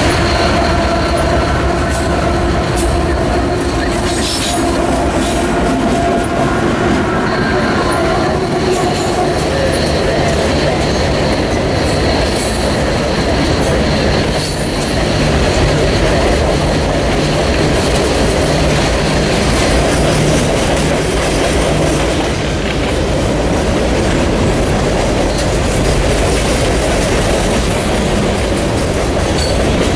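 Union Pacific freight train passing close by. Its diesel locomotives drone past in the first few seconds, then a long string of refrigerated boxcars rolls by with a steady rumble of wheels on rail. A thin, high wheel squeal runs through the middle stretch.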